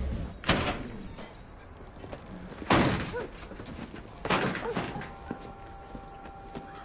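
Three heavy door bangs and thumps, about two seconds apart, as a door is shoved open and swings.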